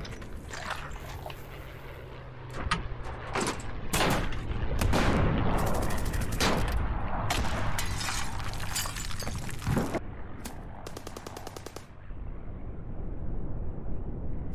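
Rifle gunfire in a battle: scattered single shots and short bursts of automatic fire, with one rapid burst a little after ten seconds in.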